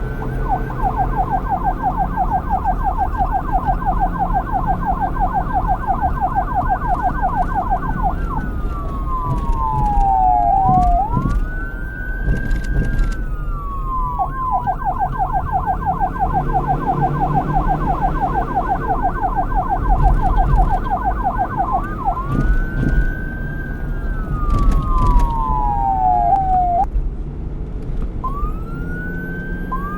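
Police car siren alternating between a fast yelp of many quick pitch sweeps a second and a slower wail of long falling and rising sweeps, over a low rumble. The fast yelp runs for about seven seconds twice, with the slower sweeps between and near the end.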